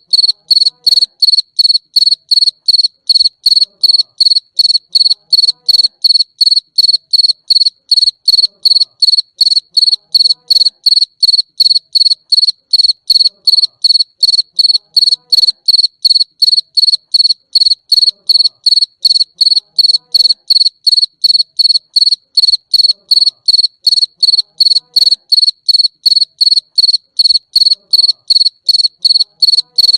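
Cricket chirping steadily, evenly spaced high-pitched chirps about three times a second.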